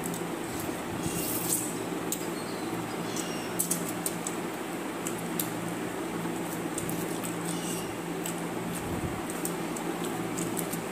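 Hands squelching through soaked rice and chicken in steel bowls, with scattered soft clicks and chewing, over a steady low hum.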